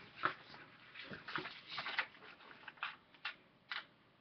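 Sheet of printer paper being folded and creased by hand: a string of short, irregular crinkling rustles that thin out toward the end.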